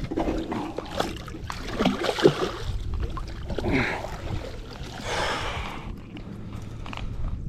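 Water splashing and sloshing around a small boat, with irregular knocks against the hull.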